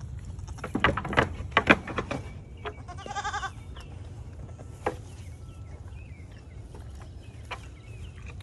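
A goat bleats once, a short, wavering call about three seconds in. Before it come a cluster of sharp knocks and crunches, the loudest sounds here.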